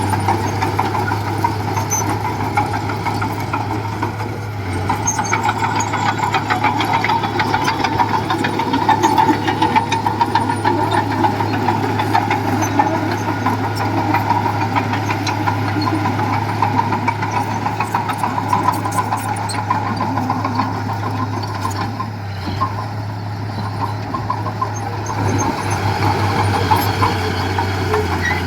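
Diesel engine of a small bulldozer running steadily, a low drone with rapid fine clatter over it.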